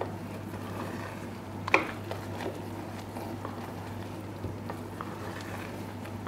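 Thick sugar syrup topping simmering in a pot at the thread stage, with faint scattered bubbling pops and stirring, over a low steady hum. A single sharp metallic clink rings out about two seconds in and is the loudest sound.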